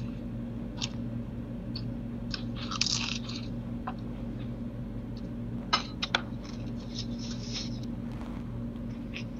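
A steady low hum under scattered sharp clicks and two short rustling noises, one about three seconds in and one around seven seconds; the loudest clicks come twice in quick succession near the middle.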